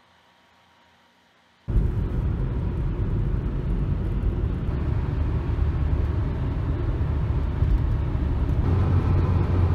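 Near silence for the first second and a half, then a sudden cut to steady road noise inside a car's cabin on a highway: a low, even rumble of tyres and engine.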